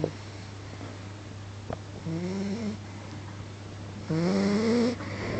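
A sleeping pet snoring twice, about two seconds apart, each snore a pitched rasp that rises in pitch. The second snore is the louder. A steady low hum runs underneath.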